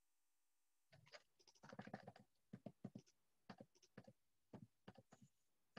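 Faint computer keyboard and mouse clicks, irregular short taps starting about a second in, with a quick cluster near the two-second mark.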